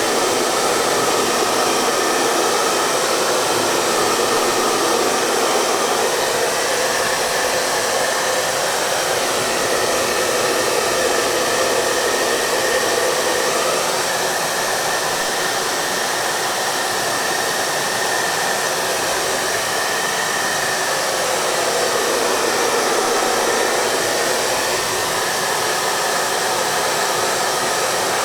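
Hair dryer running steadily: a constant rush of blown air, its tone drifting slowly up and down.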